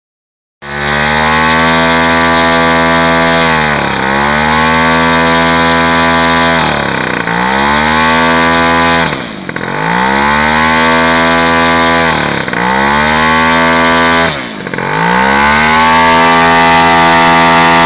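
Model airplane's two-stroke engine running at high revs, dropping sharply in speed and climbing back about five times as it is throttled down and up during carburettor tuning.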